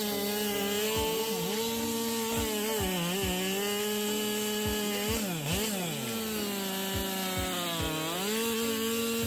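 Two-stroke chainsaw running at high revs while cutting wood, its engine pitch dipping and recovering several times as the chain bites into the cut.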